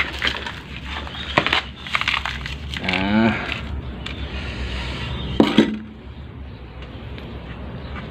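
Hands pressing and patting potting soil around a bonsai seedling in a plastic pot, with scattered crackles and clicks. A short wavering pitched sound comes about three seconds in.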